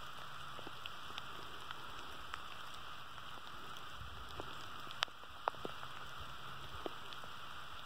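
Steady rain falling on grass, a soft even hiss with scattered sharp ticks of single drops, two louder ticks about five seconds in.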